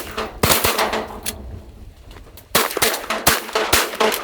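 Shotguns firing at ducks: a quick volley of blasts in the first second or so, a pause, then another rapid volley of about five shots from about two and a half seconds in.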